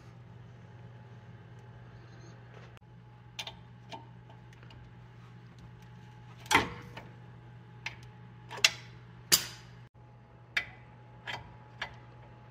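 Ratchet wrench and socket working a front brake caliper bolt: a string of separate sharp metallic clicks and clinks, irregularly spaced, the loudest about six and a half seconds in. A steady low hum runs underneath.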